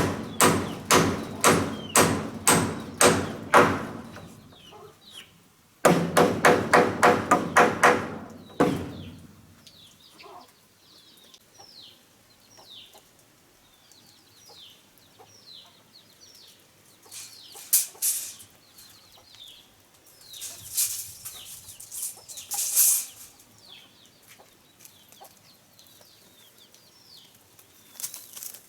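Two runs of rapid, regular blows, about four a second, the first lasting about four seconds and the second starting about six seconds in. After them come chickens clucking, with small birds chirping.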